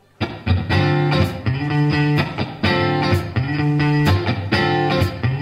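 Rock band playing an instrumental passage: electric guitar over electric bass and a drum kit, the music starting abruptly a moment in.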